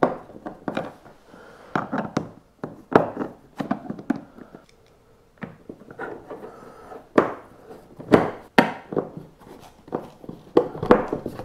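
Small screws and a Phillips screwdriver worked against a replacement carry handle on a plastic kayak hull: irregular clicks, taps and knocks with some rubbing as the screws are set and driven in, quieter for a moment midway.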